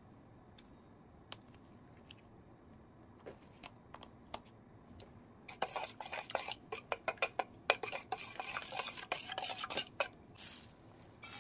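Kitchen utensils clinking and scraping against dishes and a pot. A few faint clicks come first, then about halfway in a dense run of quick, irregular clatter lasts around four seconds.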